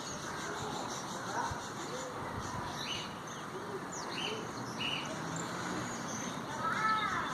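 Canaries chirping with short, scattered calls over a steady hiss, with one louder call near the end.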